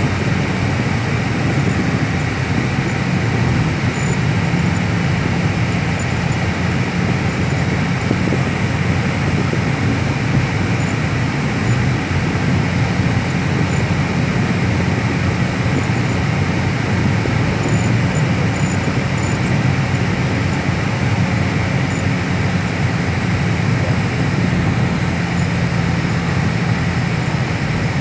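Steady road and engine noise of a car driving at highway speed, heard from inside the cabin.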